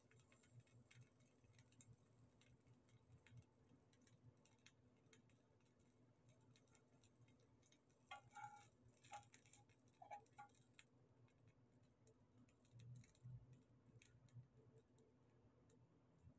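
Near silence with faint scattered ticks. About eight to ten seconds in, a metal spoon clinks and scrapes a few times against a nonstick frying pan.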